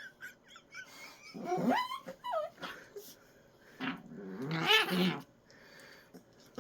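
Small dog whining in short high whimpers, then a couple of rising, falling yelping whines, then a louder rough growl about four seconds in; the dog is protesting having her harness put on.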